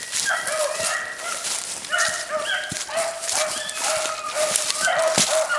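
A pack of rabbit hounds baying on a rabbit's trail, several dogs giving short overlapping cries without a break.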